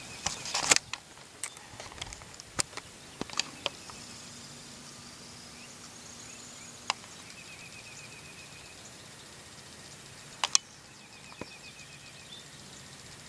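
Quiet rural outdoor ambience: a steady hiss of background noise with faint bird trills twice in the middle, and scattered sharp clicks and ticks, most of them in the first few seconds.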